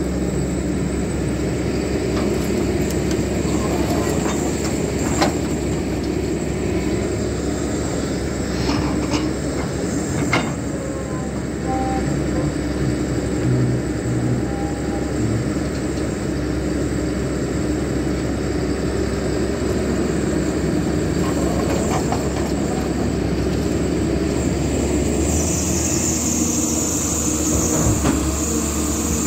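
Caterpillar hydraulic excavator's diesel engine running steadily under load as it digs, with a few sharp metallic clanks early on. A high hiss comes in near the end as the machine swings.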